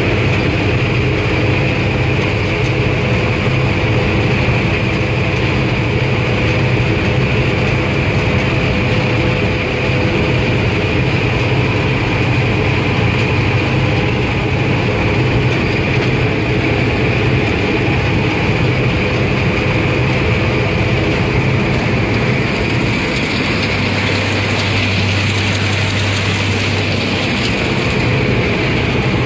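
Claas Mercator 75 combine harvester at work cutting barley, heard from inside the cab: the steady drone of its engine and threshing machinery. The tone shifts briefly about 23 seconds in.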